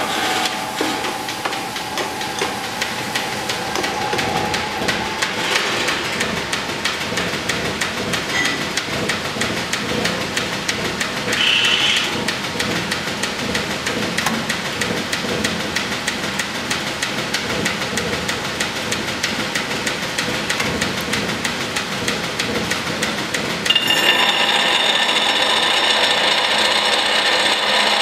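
Belt-driven pedestal grinder (a 1923 Mayer-Schmidt) running steadily with its wheel spinning free. About 24 seconds in, metal is pressed against the wheel and a louder, higher grinding noise starts and keeps on.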